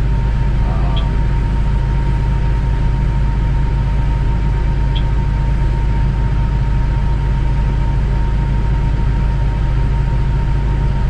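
Combine harvester running steadily under load while cutting soybeans: a constant low drone with a thin steady whine above it.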